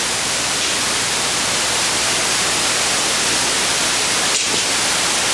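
Steady, loud hiss of static, even from low to high pitch with a faint low hum beneath, cutting off suddenly near the end.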